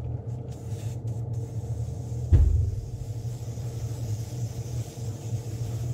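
Airbrush air compressor running with a steady low hum, with a single thump about two seconds in.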